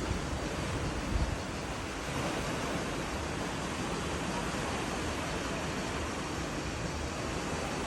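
Sea waves washing on the shore: a steady surf hiss, with a brief low rumble of wind on the microphone about a second in.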